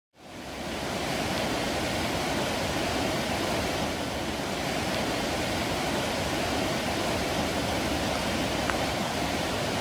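The Wenatchee River's whitewater rapids rushing steadily, the river running high with spring run-off. The sound fades in over the first half second, then holds even without a break.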